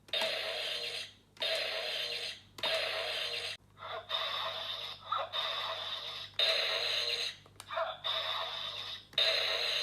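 Electronic sound effects from a large Kamen Rider Saber holy sword toy, played through its small built-in speaker: a short burst of sound repeated about once a second, in a steady loop.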